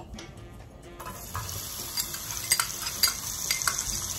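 Diced red onion hitting hot olive oil in a pot and sizzling, starting about a second in, with several sharp clicks and pops over the hiss.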